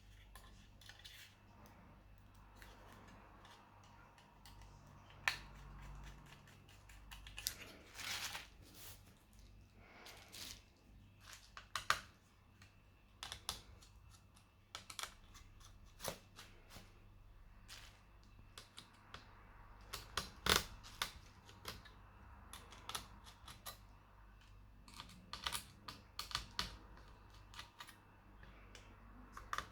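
Irregular clicks and taps of small plastic and metal laptop parts being handled, about one to three a second, during a hard-drive-to-SSD swap.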